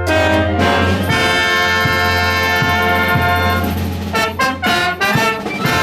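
Concert band with prominent brass playing the closing bars of a piece: a long held chord, then a few short punched chords, the last one cutting off at the end.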